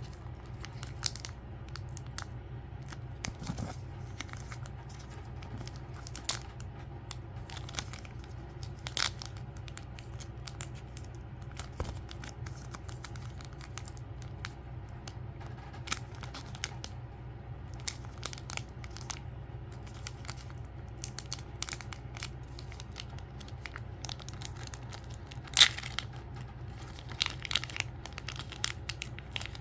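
Packaging being torn open and crinkled by hand: scattered rustles, crinkles and small tearing crackles, with a sharper crackle about 25 seconds in, over a steady low hum.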